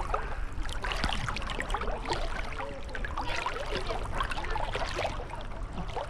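River water sloshing and splashing close by around a person drifting in the current, a steady run of small splashes over a low rumble.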